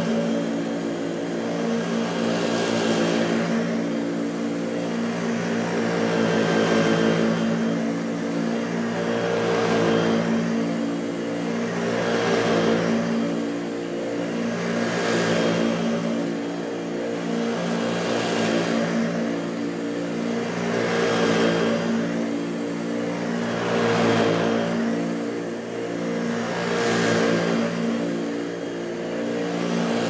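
Hoover Junior U1104 upright vacuum cleaner running on carpet: a steady motor hum with a rush of air that swells and falls every two to three seconds as the machine is pushed back and forth.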